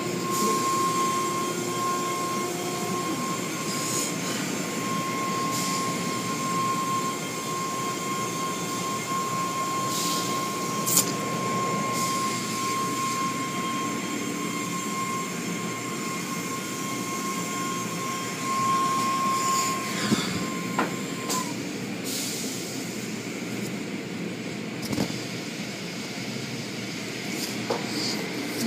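Automatic tunnel car wash machinery heard from inside the car: a steady rumble and hiss, with a steady high whine that cuts off about three quarters of the way through and a few sharp knocks.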